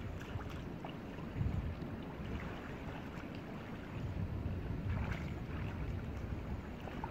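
Water sloshing and splashing as people wade chest-deep and drag a hand net through a muddy stream, with a few sharper splashes. Wind rumbles on the microphone underneath.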